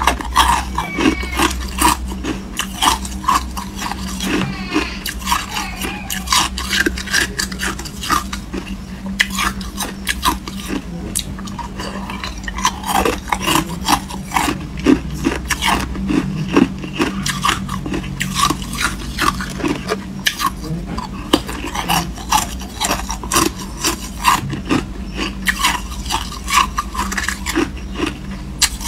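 Hard ice cubes being bitten and crunched between the teeth: a dense, irregular run of sharp cracks and crunches over a steady low hum.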